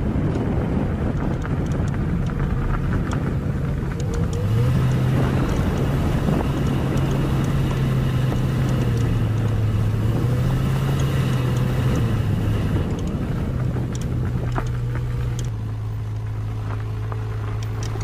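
SsangYong Rexton driving slowly on a gravel forest road: a steady low engine drone over tyre noise on gravel, with scattered light clicks. The engine note steps up a little about four seconds in and drops back a couple of seconds before the end.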